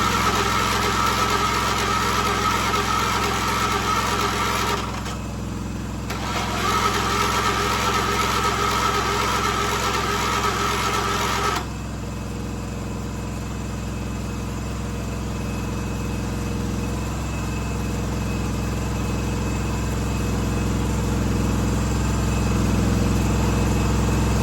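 1976 John Deere 300 lawn tractor's starter motor cranking on jumper cables in two runs of about five seconds, the second cut off suddenly about twelve seconds in, with no clear catch: a hard start on a dead battery. Another engine keeps running steadily underneath throughout.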